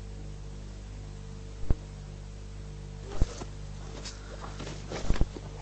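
Sharp cracks of gunfire on an old amateur video recording: single shots at about one and a half seconds and three seconds, then a quick run of three near five seconds. A steady electrical hum from the tape runs underneath.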